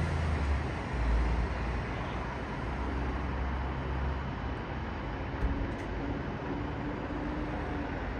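Alexander Dennis Enviro bus running with a low rumble. From about halfway a steady whine rises slowly in pitch: the vacuum-cleaner-like 'Dyson hoover' whine these buses are known for.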